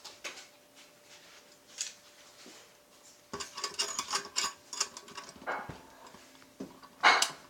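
Handling noise: objects rubbed, scraped and knocked about, with scattered clicks at first, then a busier stretch of scraping and rattling from about halfway, and a loud scrape or knock near the end.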